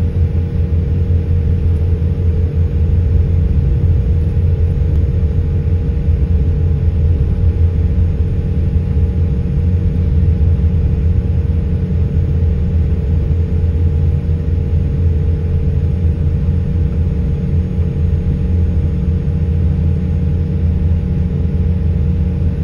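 Airliner's jet engines running steadily while the plane taxis, heard from inside the cabin as a loud low rumble with a steady hum above it.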